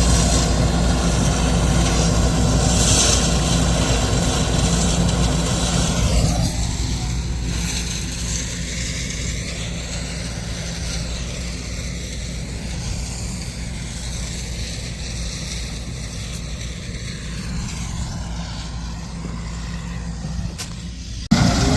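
Heavy diesel farm machinery running steadily with a low engine hum. About six seconds in it gets quieter and loses its higher hiss, and the sound changes abruptly just before the end.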